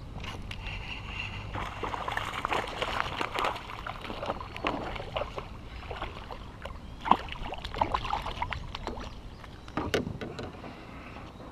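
A small bass being reeled in and landed from a plastic kayak: splashing and thrashing at the water surface beside the hull, with the fishing reel cranking. A few sharp knocks come about seven and ten seconds in, as the fish is brought alongside.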